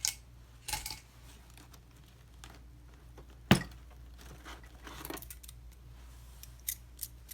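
Metal hand tools clinking as they are handled and set down: a few light clicks and clacks, with one sharp, louder clack about three and a half seconds in.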